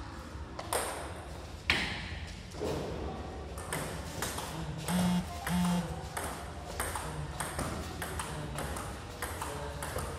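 Table tennis rally: the ball clicking off the paddles and bouncing on the table. A single sharp, loud click comes a little under two seconds in, then from about three and a half seconds a quick run of clicks, about three a second.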